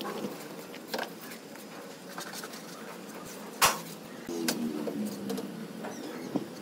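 Small hand tool working on a concrete column's steel mould: light scraping and knocks, with one sharp metallic tap about three and a half seconds in.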